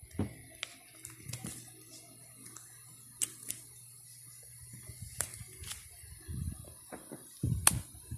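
Coins being handled in a plastic-pocket coin album: scattered sharp clicks and crinkles of the clear plastic pockets and coin capsules. Near the end come a couple of duller thumps, the loudest as the album is closed and set down.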